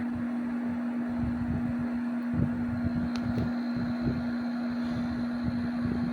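Window air conditioner running: a steady hum over the even rush of its fan.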